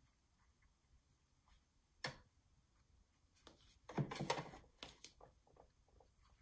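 Quiet crafting handling noises: one sharp tap about two seconds in, then a short cluster of paper crackling and small knocks around four seconds in as a die-cut paper flower strip is lifted and handled.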